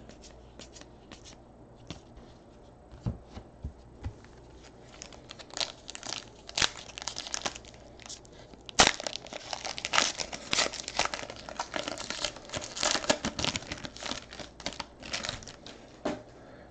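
A foil trading-card pack wrapper being torn open and crinkled by hand. The tearing and crackling rustle starts about five seconds in and runs on, with one sharpest tear near the middle. Before it there are only a few soft clicks.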